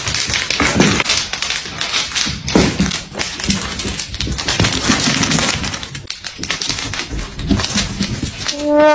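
Rapid, irregular tapping and clicking from kittens playing on a hard floor.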